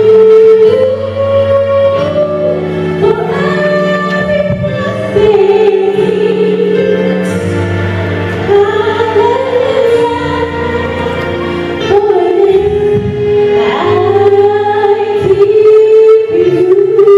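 A young woman sings a gospel song solo into a microphone over backing music, holding long notes.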